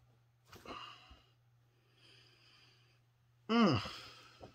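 A man's breath about half a second in, then a short wordless voiced sigh that falls steeply in pitch, the loudest sound, about three and a half seconds in.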